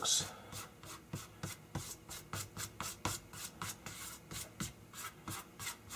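Hands rubbing and smoothing a freshly glued sheet of paper flat, in quick repeated brushing strokes, about four a second.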